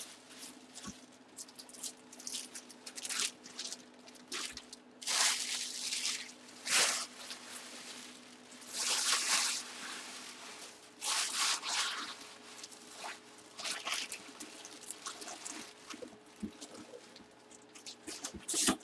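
Plastic bags and packaging being handled: irregular bursts of rustling with short pauses between.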